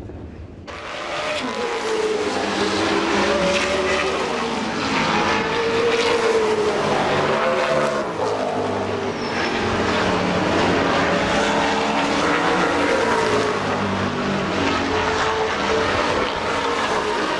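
Classic saloon race cars' engines running hard on track, several engine notes rising and falling in pitch as they accelerate and lift. The sound swells in about a second in.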